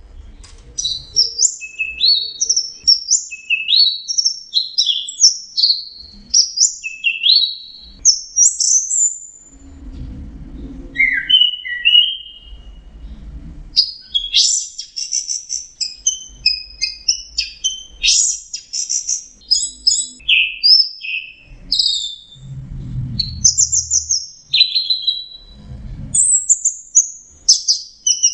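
Orange-headed thrush singing a long, fast run of varied whistled phrases, with notes sweeping up and down, broken by a short run of lower, slower notes about ten seconds in. Low rumbles sound underneath now and then.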